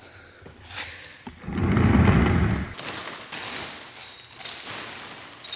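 Clear plastic bag crinkling and crackling as it is pulled off a racing seat, with many short crackles. About one and a half seconds in, a dull, low rush of handling noise lasts about a second and is the loudest sound.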